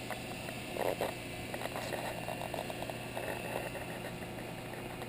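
VacMaster VP215c chamber vacuum sealer's rotary oil pump running steadily, pulling a vacuum in the chamber.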